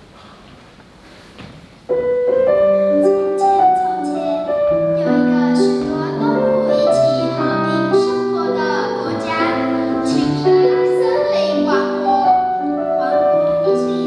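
A school recorder ensemble playing several parts together, starting suddenly about two seconds in after faint room noise. Held notes with low parts under higher melody lines.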